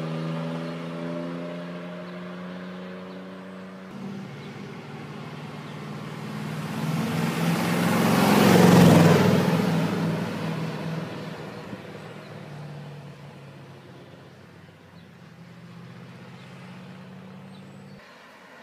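Classic sports car engines on a road: one car's engine fades off in the distance, then a classic Corvette's engine grows steadily louder, peaks about nine seconds in as it comes close, and fades away again.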